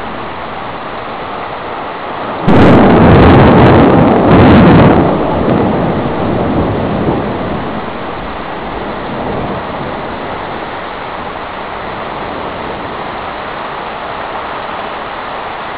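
A close thunderclap: a sudden loud crash about two and a half seconds in, a second burst a couple of seconds later, then rumbling away over a few seconds. Heavy rain pours steadily under it.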